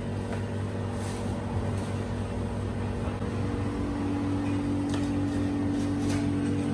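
Steady hum of kitchen appliances in a takeaway shop, such as an extractor hood and refrigerated displays, with a few faint clicks about one, five and six seconds in.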